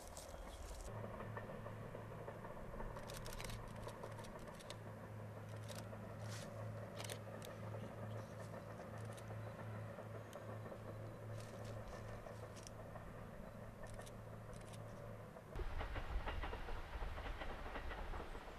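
Chemins de Fer de Provence diesel railcar running across a viaduct: a steady low engine drone with scattered light clicks. Near the end the sound jumps louder and rougher as the train is seen much closer.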